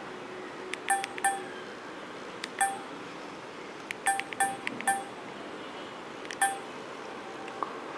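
Keypad key-press tones of a budget feature phone during multi-tap text entry. There are about nine short beeps in irregular clusters, with a pause between the first and second half.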